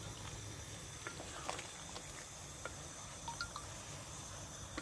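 Thick korma gravy simmering in a steel pot and being stirred with a wooden spoon: scattered soft plops and small clicks over a faint, steady low rumble.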